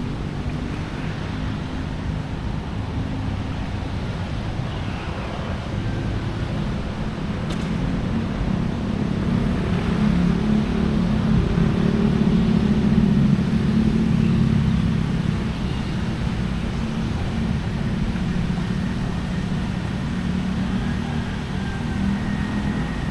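Low hum of a vehicle engine that grows louder about halfway through, holds for several seconds, then eases off again, over steady traffic noise.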